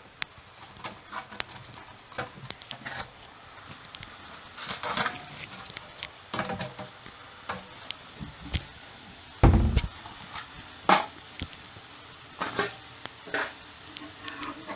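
Scattered light clicks and knocks of a cooking pan and utensils, with one louder, deeper thump about nine and a half seconds in.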